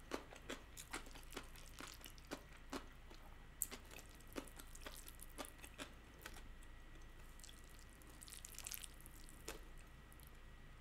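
Faint, wet eating sounds: scattered soft clicks of chewing and of chopsticks lifting saucy stir-fried instant noodles, with a short hissy slurp about eight and a half seconds in.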